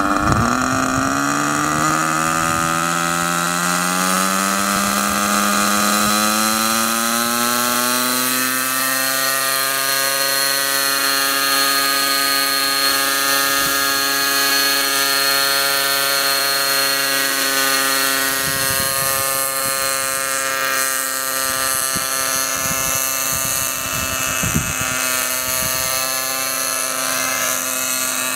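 Hawkpro 32 nitro RC helicopter's glow engine and rotors spooling up, the whine rising in pitch over about the first nine seconds, then holding a steady pitch as it lifts off and flies.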